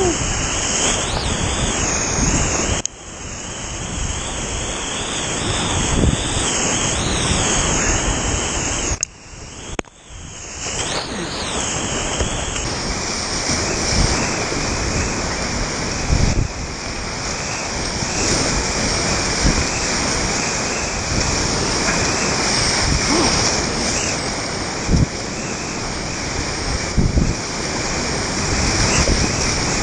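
Loud, steady rush of whitewater rapids in a river in high water, heard from a kayak in the middle of the current, with a few brief knocks or splashes. The rush drops away for about a second near ten seconds in.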